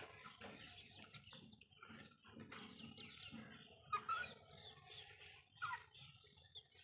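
Desi chickens clucking and chirping, many short calls overlapping. A couple of sharper, louder calls stand out about four seconds in and again near six seconds.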